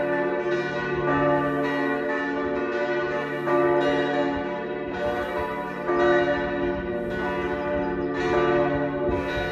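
Church bells ringing together in a full peal: overlapping strikes about once or twice a second, each leaving a long, lingering ring under the next.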